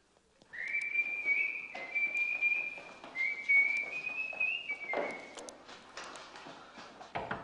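A high whistle held on a nearly steady pitch, stepping slightly up and down a few times, lasting about four and a half seconds, with faint ticks around it.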